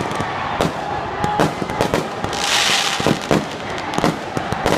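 Firecrackers going off in a quick, irregular series of sharp bangs, with a hissing rush lasting under a second about halfway through.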